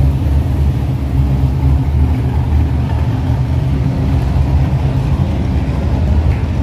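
Sports car exhausts running steadily at low revs as the cars pull slowly out one after another, first an orange Nissan 280ZX, then a yellow Toyota GR Supra, in a concrete parking garage.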